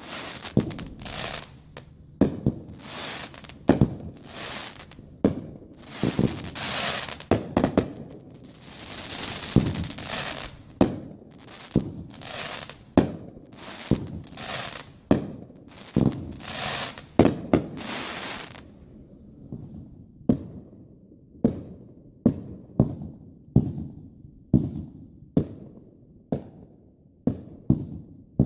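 Consumer aerial fireworks going off in quick succession: sharp booms about every half second with crackling, hissing bursts between them. About two-thirds of the way through the crackle stops and plain booms carry on, about one a second.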